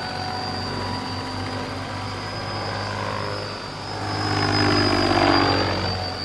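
Scale RC tandem-rotor helicopter, a model of the CH-113 Labrador, flying close by: steady rotor hum with a high, steady whine over it. It grows louder from about four seconds in as it passes near, then eases off near the end.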